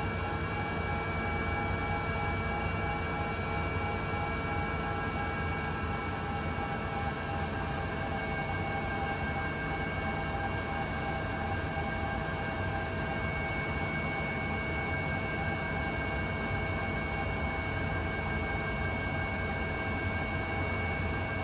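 Leonardo AW169 twin-turboshaft helicopter running steadily, heard from inside the cabin: a constant low rumble with several steady high whines on top.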